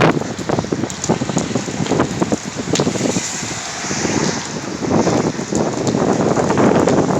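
Gusty wind from an oncoming severe thunderstorm rushing loudly over the microphone, buffeting it in uneven gusts with short crackling hits.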